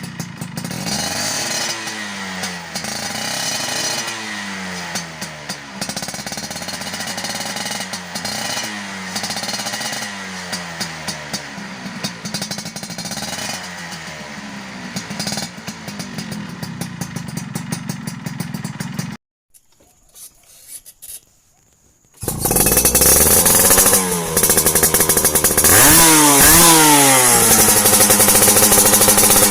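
Two-stroke Yamaha F1ZR engine revved again and again through an aftermarket side-mounted racing exhaust, its pitch rising and falling with each blip of the throttle. The sound breaks off for about three seconds around two-thirds of the way through, then comes back louder with more revving.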